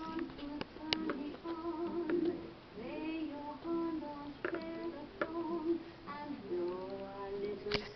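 A high singing voice, like a woman's or child's, with held, wavering notes and short breaks between phrases, punctuated by a few sharp clicks.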